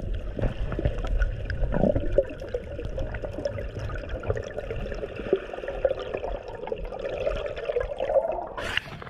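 Muffled underwater water noise heard through a submerged camera: a low rumble with faint crackles and bubbling. Near the end a short splashy rush comes as the camera breaks the surface.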